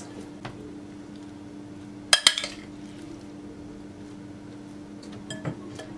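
Metal spoon clinking against a glass bowl as a salad is stirred: one sharp clink about two seconds in, and a few light taps later. A steady low hum runs underneath.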